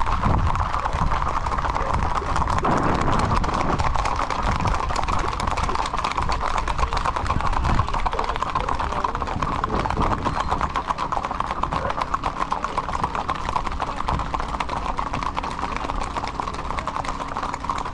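Many horses' hooves clip-clopping on asphalt in a rapid, dense, continuous patter.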